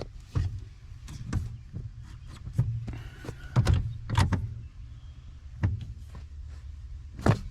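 Scattered metallic knocks and clanks of tools and parts being handled during car repair work, over a steady low hum.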